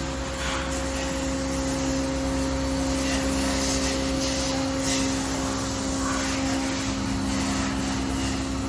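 Steady machine hum from a powered-up Campro NT-208 CNC lathe, its pumps and fans running, holding several constant pitches. A few faint knocks sound over it.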